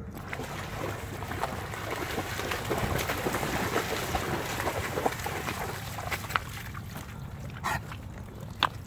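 A large dog, a Blue Bay Shepherd, running through shallow river water and splashing. The splashing fades about six seconds in, and a few sharp clicks follow near the end.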